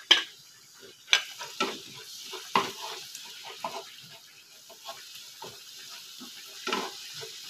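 Wooden spatula stirring and scraping a ground shallot, garlic and candlenut paste around a nonstick frying pan, over a faint sizzle of the paste frying in olive oil. A sharp knock against the pan comes at the very start.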